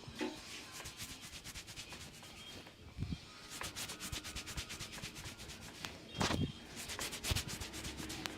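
Hands rubbing briskly over hair and scalp during a head massage. The strokes are short and repeated, sparse at first, then coming several a second from about three and a half seconds in.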